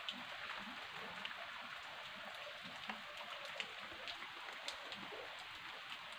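Faint, steady patter of water trickling and dripping down a stone masonry foundation, with scattered small drip ticks.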